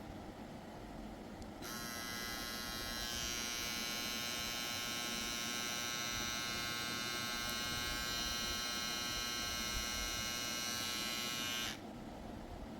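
Bill Pro BL22 cordless hair trimmer running steadily with an even, high buzz. It switches on about two seconds in and cuts off sharply near the end. It is running at full speed, measured at about 7,200 RPM.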